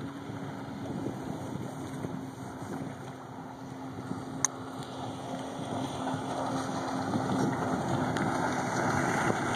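A 2005 Sea-Doo RXT jet ski running at speed across open water, a steady engine tone that grows louder over the second half as it approaches. Wind buffets the microphone, and there is a single sharp click about halfway through.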